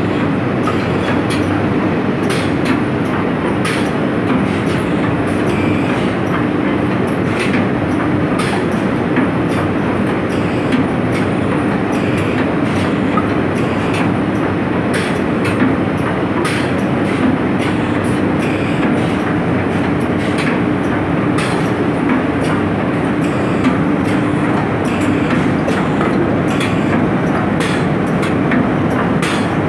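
Cement bag packing machinery running: a loud, steady mechanical drone with a low hum, broken by frequent short clacks and knocks.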